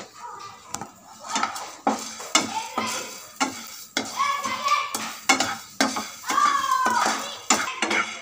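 Spatula stirring dry white jowar (sorghum) grains in a hot, heavy nonstick pan, the grains rattling and scraping across the pan in strokes about twice a second as they dry-roast.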